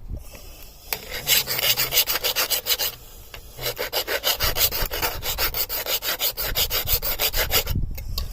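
Hand file rasping back and forth along the edge of a steel Flymo hover-mower blade, in quick repeated strokes, sharpening a blunt, nicked cutting edge. The filing comes in two runs with a short pause about three seconds in.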